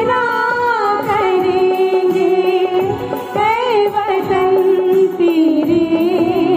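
A mixed choir of men and women singing together, holding long notes with vibrato as the melody steps down in pitch.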